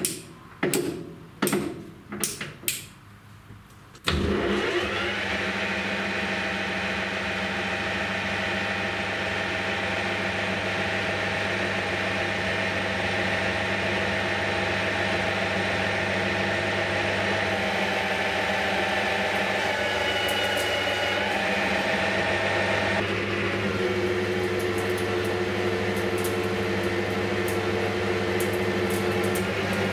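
A few short knocks, then about four seconds in the Hafco Metal Master AL-340 metal lathe starts and runs steadily, a hum with several steady whining tones. Past the middle the tone changes as the tool starts cutting the 4140 steel blank in the four-jaw chuck, with light crackling of chips near the end.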